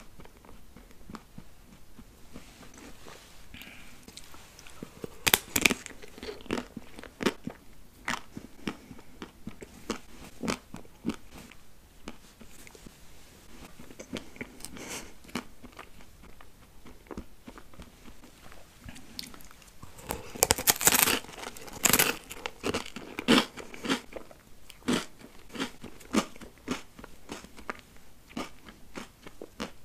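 Bites into a chocolate-dipped ice cream cone, the hard chocolate shell and wafer cone crunching, then chewing. The loudest crunches come about five seconds in and again in a cluster around two-thirds of the way through.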